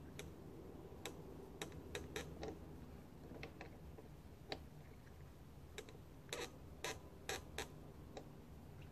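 Irregular sharp clicks and taps of hand tools on an overhead line's connection as a lineman works at the top of the pole, repairing a bad contact; several come in a quick cluster near the end.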